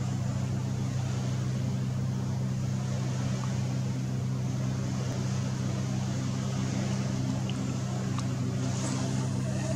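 A motor running steadily at constant speed: an even, unchanging low hum, with a few faint ticks near the end.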